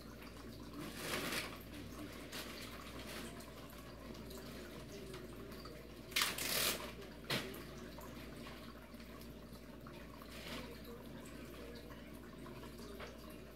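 Water trickling and dripping in a small aquarium, faint and steady. A few louder bursts come about a second in and again around six to seven seconds in.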